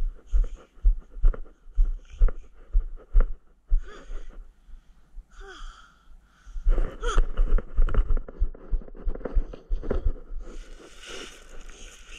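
Bare footsteps on a wooden deck at a walking pace of about two steps a second, then denser scuffing and rustling from about seven seconds in, ending with sheets of corrugated cardboard being picked up and crinkled.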